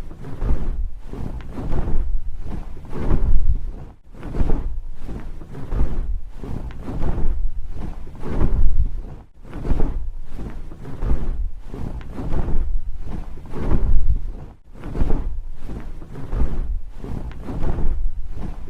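Large wings flapping in a sound effect: fast, fluttering whooshes of air that swell and fade again every two to three seconds.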